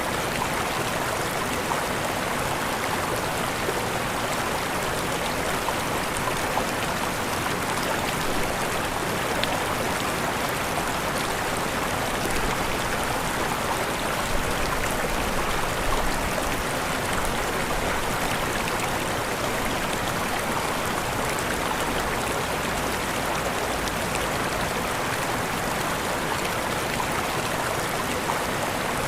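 A river running over small waterfalls: steady rushing and splashing of flowing water.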